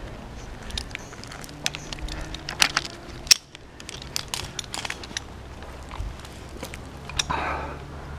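Sharp clicks and crackles from tree-climbing gear and pine bark: metal carabiners and rope hardware clinking and bark scraping and cracking under a climber's hands and boots. The loudest single click comes a little past three seconds in, and a short rasping noise follows near the end.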